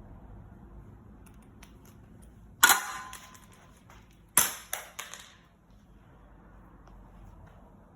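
Two sharp clacks of hard objects knocking together, about two seconds apart, the second followed quickly by two or three smaller knocks, between quiet stretches after the drill has stopped.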